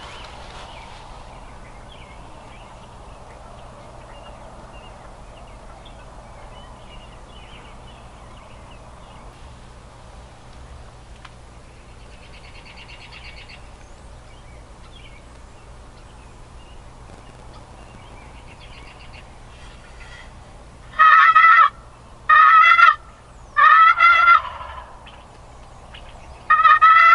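Merriam's wild turkey tom gobbling: four loud, rattling gobbles in quick succession near the end, after a long stretch of quiet field background.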